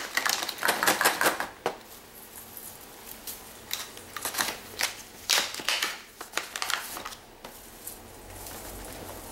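Gold Christmas ball ornaments clicking and clattering against one another and a clear plastic storage tube as they are dropped into it, in a few short runs of clicks with handling rustle between.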